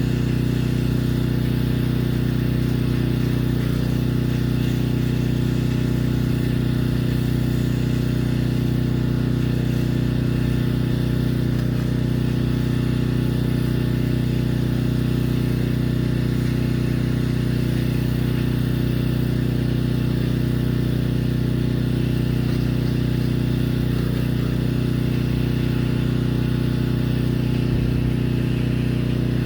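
Pressure washer's engine running steadily at constant speed, a low hum with a faint regular pulse.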